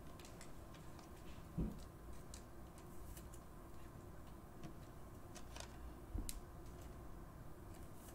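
Faint, scattered clicks and taps of trading cards being handled on a desk, with a soft thump about a second and a half in and another near six seconds.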